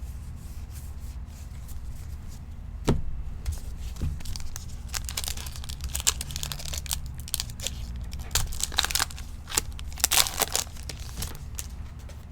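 A trading-card pack wrapper being torn open and crinkled by hand. Two sharp clicks come first, then about six seconds of crackly rustling, loudest near the end.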